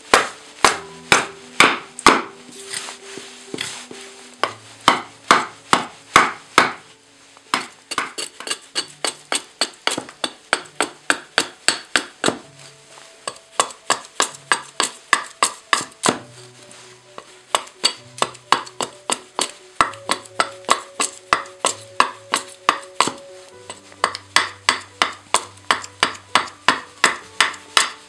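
A hatchet chopping repeatedly into an ash branch held upright on a log chopping block: sharp wooden chops at about two to three a second, with a short pause about seven seconds in. Soft background music plays underneath.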